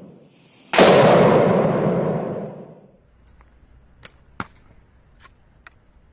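A single gunshot: a sharp, loud crack about a second in whose echo fades over about two seconds. Later come a few faint, sharp clicks as a bow is shot.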